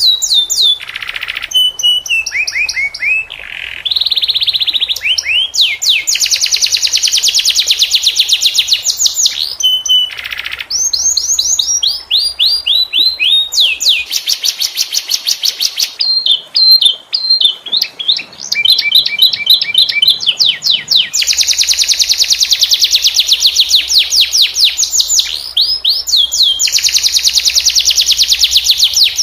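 Domestic canary singing: long rolling trills of rapidly repeated notes, some phrases sweeping downward in pitch, broken by short pauses between phrases.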